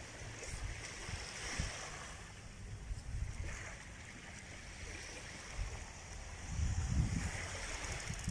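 Small waves washing onto a sandy shore, a soft rush every couple of seconds, over a low, uneven rumble of wind on the microphone.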